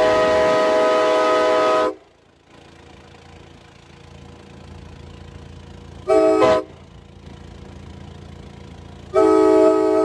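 Nathan K5LA five-chime air horn, a 1977 ex-Amtrak FL9 'Bigtag Corker', sounding its chord: a long blast that cuts off about two seconds in, a short toot about six seconds in, and another blast starting near the end. Between blasts there is the road and wind noise of the moving vehicle carrying it.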